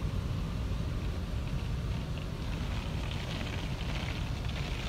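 Automatic car wash spray arch jetting water and foam onto the car, heard from inside the cabin: spray hissing and pattering on the windshield over a steady low rumble, the hiss growing louder about a second and a half in.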